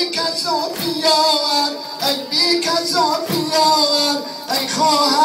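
Singing of a Persian Muharram noha (lament), with sharp strikes at roughly one a second from the mourners' rhythmic chest-beating (sineh zani).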